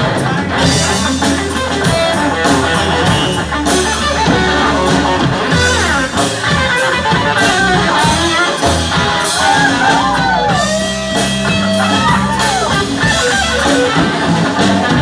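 Live rock band playing an instrumental passage: electric guitar over drum kit and a steady low bass, with cymbals. In the middle the guitar plays a lead line with bent, gliding notes.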